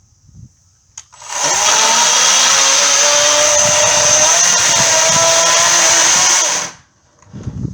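EGO 56-volt cordless 14-inch electric chainsaw running at speed, cutting through old fence wood. It starts about a second in, holds a steady whine for about five and a half seconds with slight dips in pitch, and cuts off sharply near the end.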